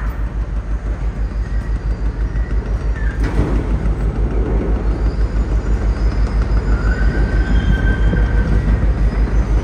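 Heavy cargo-handling machinery during container loading: a steady low throb pulsing about six times a second. About three seconds in, a louder rumble joins it, with faint high whines.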